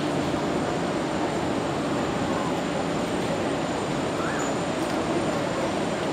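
Steady background hubbub of a busy glasshouse: indistinct distant voices over an even rumble, with no clear words.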